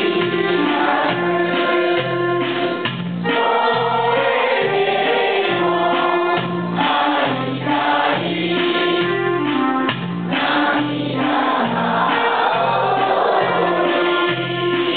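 Electronic keyboard playing through a small amplifier: a melody with sustained chords over a steady bass line of about two notes a second.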